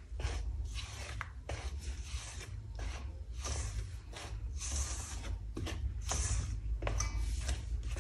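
Silicone spatula scraping and rubbing against a stainless steel mixing bowl in repeated strokes, about two a second, as sifted flour is folded into a beaten egg and sugar batter.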